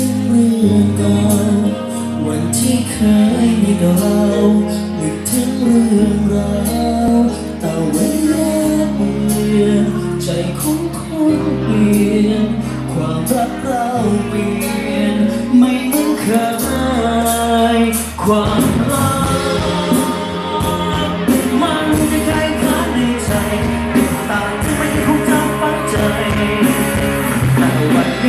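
Live band of electric guitar, bass, keyboard and drums backing a male singer in a slow pop song. Sustained bass notes move under the vocal, and the band grows fuller and busier about two-thirds of the way through.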